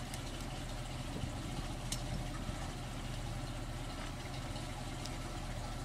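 Truck engine idling steadily, with a faint click or two.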